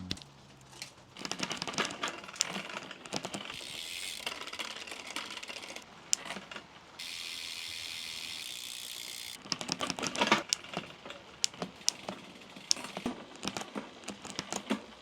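Bicycle chain and drivetrain being worked by hand: rapid irregular clicking and ratcheting of metal parts, with a steady fast ratchet buzz of a freewheel for a couple of seconds in the middle.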